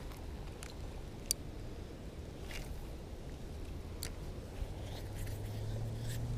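Light spinning rod and reel being worked through a lure retrieve: a few faint sharp clicks of handling over a steady low outdoor rumble. A motor's low hum comes in near the end and grows louder.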